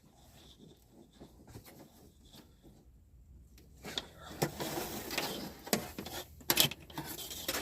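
Handling noises as camper parts and wiring are worked on by hand: faint scattered ticks, then from about four seconds in a busier run of irregular clicks, knocks and rustling.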